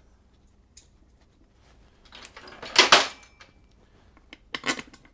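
Steel bolts clinking and rattling as they are handled and started by hand into a motorcycle's primary cover. There is a busy cluster of clinks about two to three seconds in and a shorter one near the end.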